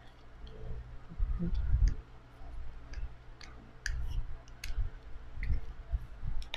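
Plastic clicks and knocks from a Feiyu Vlog Pocket folding gimbal as its arms are twisted and unfolded by hand. The clicks are irregular, about a dozen, with dull handling thumps in between.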